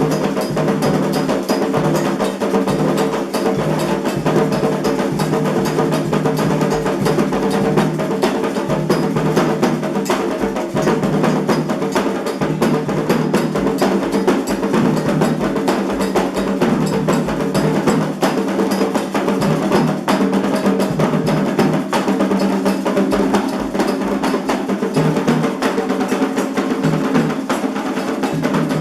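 Candomblé ritual drumming on atabaque hand drums: a dense, fast, unbroken rhythm of strokes that keeps going at an even level.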